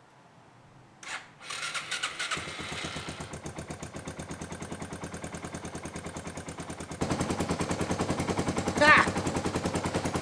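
Yamaha XT225's single-cylinder four-stroke engine being started after a piston rebuild and carb clean: a short cranking noise about a second in, then it catches and runs with a rapid, even exhaust beat that gets louder about seven seconds in.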